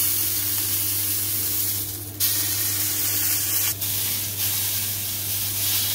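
Steak sizzling in a hot ridged griddle pan as it is held upright on its edge with tongs to sear the edge: a steady hiss that dips briefly twice.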